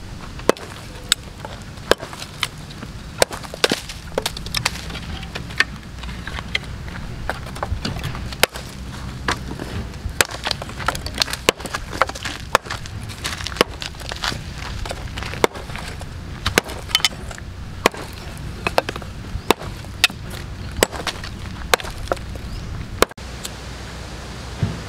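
A dead wooden stick being worked against a fallen log: a series of sharp, irregular wooden knocks and cracks, about one or two a second, over a steady low rumble.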